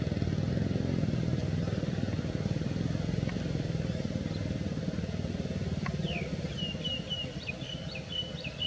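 A small motorcycle engine running close by, a steady low rumble that eases off after about six seconds. Over the last couple of seconds comes a quick run of short high chirps.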